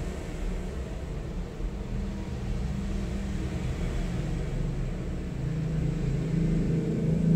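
Low steady background rumble with a hum that grows louder over the last two seconds.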